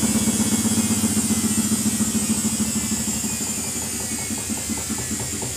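Samsung front-loading washing machine spinning down after a spin: the motor's high whine falls and the sound grows quieter, with a rhythmic pulse from the turning drum that slows as the drum loses speed.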